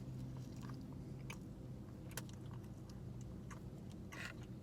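Faint chewing of a burger, with small wet mouth clicks, over a steady low hum.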